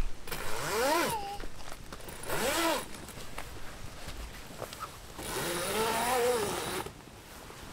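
Zip on a canvas awning side wall being pulled along in three strokes, each a rasp that rises and falls in pitch; the last stroke is the longest.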